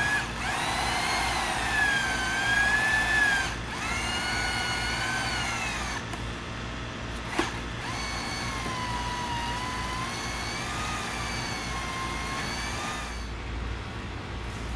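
Tree-rigging gear whining as a log section is hauled along a highline: a high-pitched whine that rises and falls in pitch. It comes in three long stretches, with a short break about three and a half seconds in and a longer pause halfway through, and a single sharp click in that pause.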